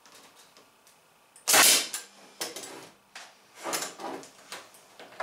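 Pneumatic stapler driving staples through a thin plywood ceiling skin into the trailer's wall edge. It fires in several sharp shots; the loudest comes about one and a half seconds in, followed by lighter ones.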